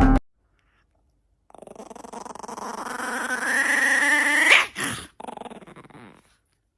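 A dog giving one long drawn-out vocal call that rises in pitch and grows louder for about three seconds, ending in a sharp upward yelp, followed by a brief shorter sound and a fainter tail.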